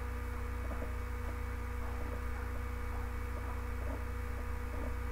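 Steady low electrical hum with a faint higher steady tone, and no other clear sound.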